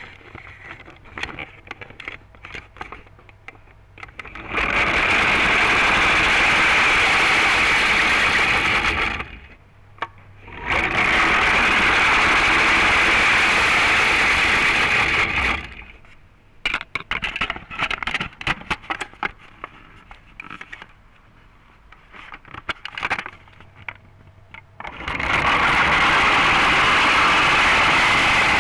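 Vintage all-metal clockwork motor of a toy bus running as its spring unwinds, picked up by a mini camera riding inside the toy. There are three runs of steady whirring gears and wheels, each about five seconds long, with scattered clicks and knocks between them. The mechanism is freshly greased and oiled.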